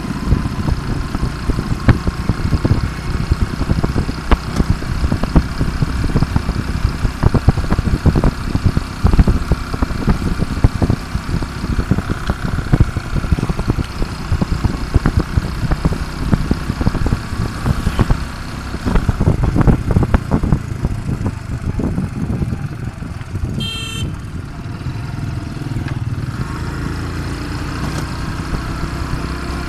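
Small motorcycle engine running while riding, with heavy wind buffeting the microphone. A brief high tone sounds near the end.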